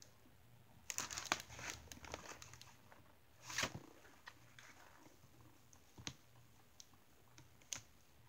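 Scissors cutting into a doll's box packaging: faint, scattered crinkling and clicking of plastic and cardboard, with a louder rustle about three and a half seconds in.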